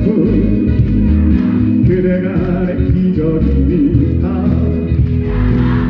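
Male singer singing live into a microphone over band accompaniment.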